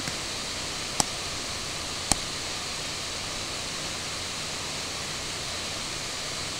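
Steady hiss of microphone background noise, with two short sharp clicks about a second apart near the start.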